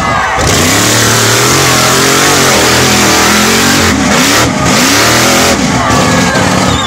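Jeep-bodied mud-bog truck's engine revving hard at full throttle as the truck churns through a deep mud pit. The revs swing up and down, dropping and climbing again several times around four to five seconds in.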